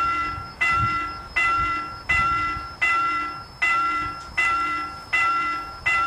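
Railroad level-crossing warning bell ringing in a steady, even ding about every three quarters of a second, each strike fading before the next. It sounds while the crossing's red lights flash and the barrier is down, the warning that a train is approaching.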